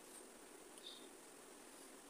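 Near silence: faint steady hiss, with one brief faint high squeak about a second in.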